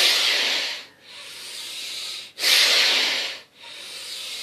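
Bhastrika pranayama breathing: a loud, fast, forceful exhale, then a quieter drawn-in inhale, and the same again about 2.4 seconds in. Each exhale squeezes air out of the lungs.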